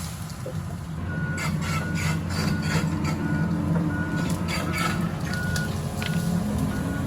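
Heavy machinery's travel/backup alarm beeping steadily at about two beeps a second over a diesel engine running, from the John Deere excavator moving on its tracks. A few sharp knocks and clanks sound in the first few seconds.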